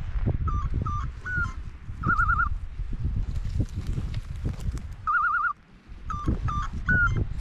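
Electronic beeper collar on a pointing bird dog sounding its point signal, which tells the hunter that the dog has stopped on point. A few quick stepped beeps are followed by a warbling trill, and the pattern comes twice. Wind rumbles on the microphone underneath.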